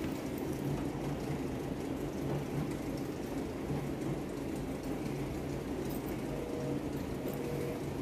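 Stationary exercise bike pedalled at a steady pace, its flywheel giving a continuous low whir.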